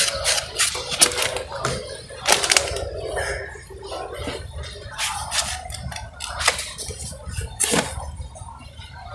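Book pages rustling as they are flipped, and books being handled and shifted on a shelf, giving a scatter of irregular sharp rustles and taps.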